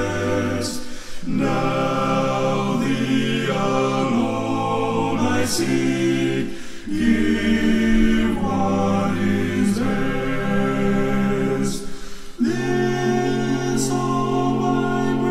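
A men's gospel vocal group singing a hymn a cappella in close harmony, low bass notes under held chords, with short breaks between phrases about a second in, midway, and about twelve seconds in.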